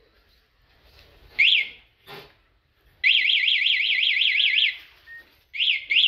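Remote-controlled motorcycle security alarm's siren, set off from its key fob. It gives one chirp, then a click, then a warbling siren burst of under two seconds with about six sweeps a second, and a double chirp near the end.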